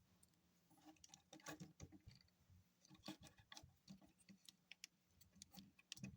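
Faint, scattered small clicks and taps of hard plastic parts on a toy robot figure being handled and adjusted.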